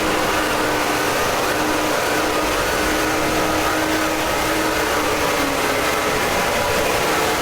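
Fan-made emergency alert alarm: a loud, steady hiss of noise with several faint tones beneath it that slowly waver in pitch.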